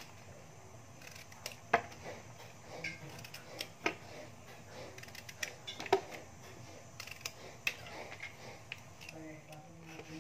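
Peeled eggplants being set down and shifted on a ceramic plate: scattered light knocks and clicks, with a few sharper taps.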